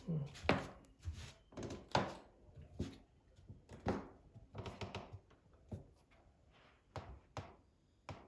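A rabbit sneezing over and over in a bad fit: about fifteen short, sharp sneezes in quick succession, the gaps between them growing longer toward the end.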